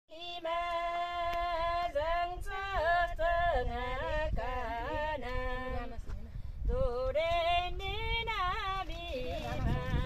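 Women's voices singing an old Kinnauri folk song unaccompanied, in long held notes that waver and glide between pitches, with a short break about six seconds in.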